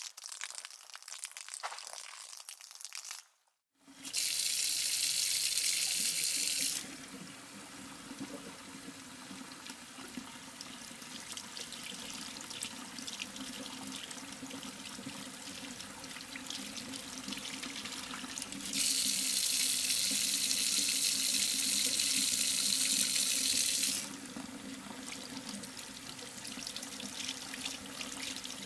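Water tap running into a sink, a steady splashing hiss that gets louder twice for a few seconds. It is preceded by the tail of a different sound and a brief silence.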